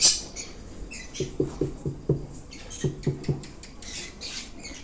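Pet parrots in an aviary chattering with many short, high chirps and squeaks.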